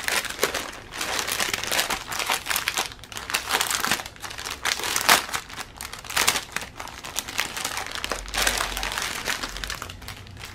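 Cross stitch kit packaging crinkling and rustling as it is opened and the kit is pulled out, in irregular handling bursts that ease off near the end.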